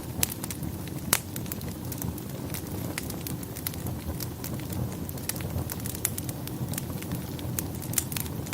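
Wood fire in a fireplace burning with a steady low rumble and irregular sharp crackles and pops, one of the louder pops about a second in.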